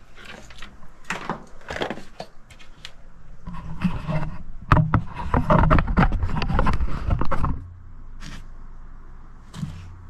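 Knocks, bumps and scraping as boards and foam insulation blocks are handled and set down on a wooden workbench. The clatter is busiest and loudest from about four to seven and a half seconds in.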